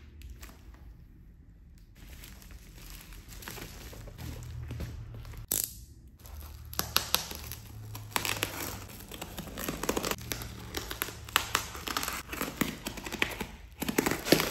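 Plastic bubble wrap and packing tape crinkling and rustling as hands press on and turn over a bubble-wrapped parcel, with a single sharp tap about five and a half seconds in. The crinkling grows busier from about seven seconds on, full of small crackles.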